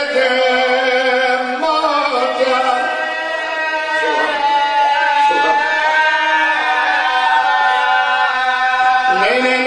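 A man's voice chanting an elegiac lament in long, held, wavering notes that slide from pitch to pitch. It is amplified through a microphone.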